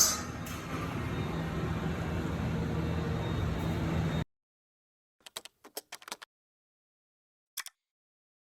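Mori Seiki NL3000MC CNC lathe running with a steady mechanical hum, cutting off abruptly about four seconds in; then silence with a few faint short clicks.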